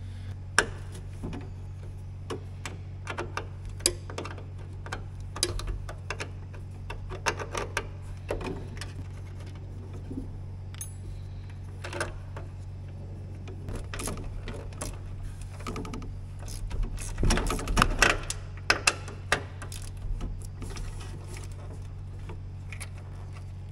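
Socket ratchet clicking and hand tools clinking on the nuts of a garden tractor's starter solenoid, in short irregular runs, with the busiest clatter a little past the middle. A steady low hum runs underneath.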